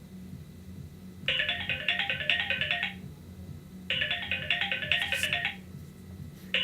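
Phone ringtone: a quick repeating pattern of notes sounding in rings about a second and a half long, starting about a second in and repeating twice, over a low steady hum.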